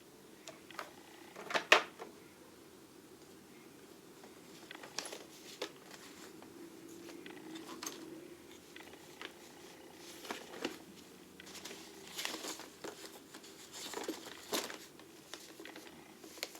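Small tools and packets being handled in a toolbox drawer: scattered light clicks and rustles, the loudest a sharp click a little under two seconds in, with busier handling noise later on.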